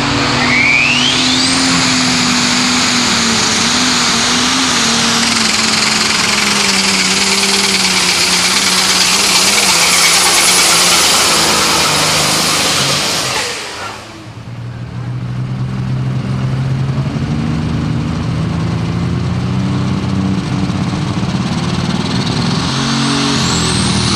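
International heavy super stock pulling tractor running flat out under load down the track, with a turbo whine climbing steeply about a second in; the sound cuts off abruptly about 14 s in. A second pulling tractor then runs at lower revs at the line, its whine rising again near the end.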